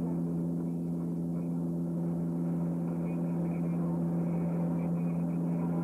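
The twin Pratt & Whitney PT6A turboprop engines and propellers of a Beech 200 King Air running steadily in flight. It is an even drone with a strong, steady low hum made of a few tones.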